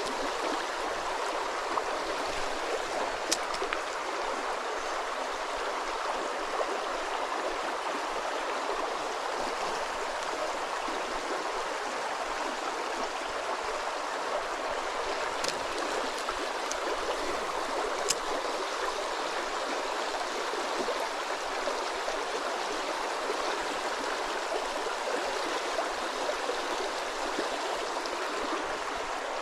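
Creek water running over rocks: a steady rush with a few faint clicks.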